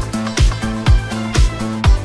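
Background dance music with a steady kick drum about two beats a second, a bass line and hi-hats.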